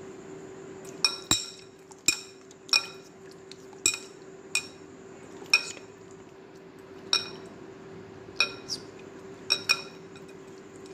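Sharp ringing clinks against a glass mixing bowl, about a dozen at uneven intervals, as hands toss pieces of hilsa fish in it. A steady hum runs underneath.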